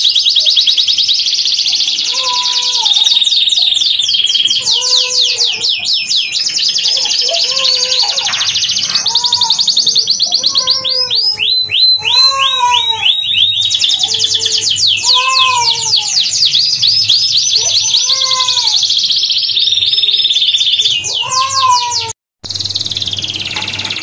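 Domestic canary singing a long, unbroken run of rapid trills and rolls, switching to a new trill every second or two. A lower, short call repeats beneath it about every second or two. The sound cuts out for a moment near the end.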